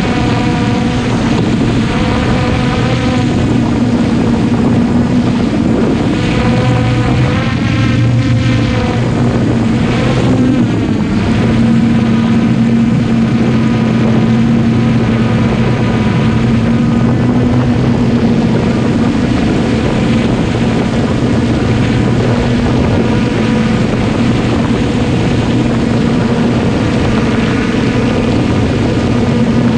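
Traxxas Aton quadcopter's electric motors and propellers whirring steadily, heard close up from the camera mounted on the drone itself. The pitch wavers a little as the throttle shifts, most noticeably about a third of the way in.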